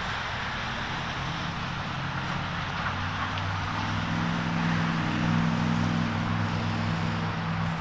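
A distant engine drone: a low hum made of several steady tones. It swells about four seconds in and eases off near the end, over a steady hiss.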